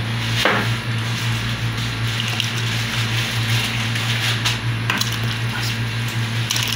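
Steady low hum under an even hiss of a lit gas stove burner heating a pot of water, with a few faint clicks.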